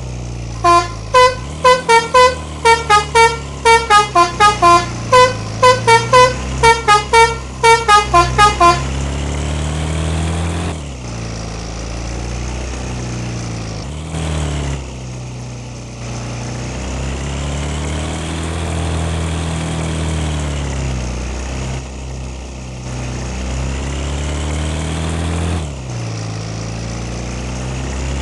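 A bus's multi-tone 'telolet' horn plays a quick melody of about two dozen short notes for some eight seconds over the running bus engine. The engine then runs on alone, its pitch slowly rising and falling.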